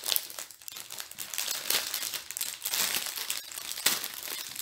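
Plastic packaging of a diamond-painting kit crinkling as it is handled, in irregular rustles and crackles.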